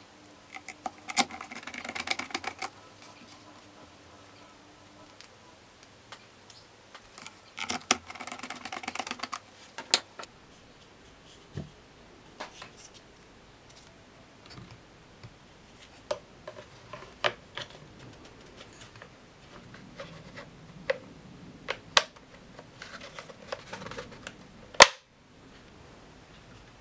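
Hard plastic parts of a Dyson DC62 cyclone assembly being handled and taken apart with a screwdriver: scattered clicks and knocks, two short bursts of rapid clattering clicks near the start and about eight seconds in, and one loud snap near the end.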